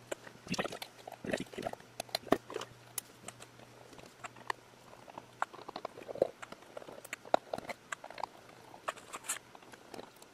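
Torx screwdriver working the security screws out of a hard drive's metal top cover: irregular small clicks, ticks and scrapes of the bit on the screw heads and case, with crinkling as the bit pushes through the label over the hidden screw.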